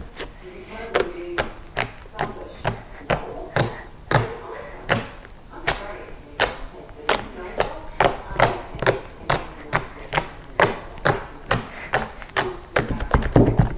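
Fingertips poking into a sheet of pink fluffy slime made with shaving cream, glue and Model Magic, giving a string of sharp little pops and squelches about two a second, coming faster near the end.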